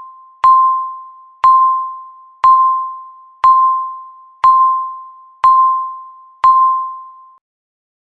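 Countdown timer beeping once a second: seven electronic beeps at one mid pitch, each starting sharply and fading before the next. The beeps stop near the end.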